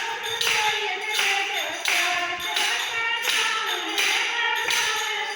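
Hindi devotional bhajan sung by a voice over a steady percussive beat of claps or taps, about three beats every two seconds.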